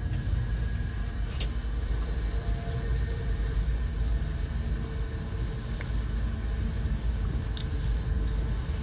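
Steady low rumble of a passenger train running, heard from on board, with a few faint clicks.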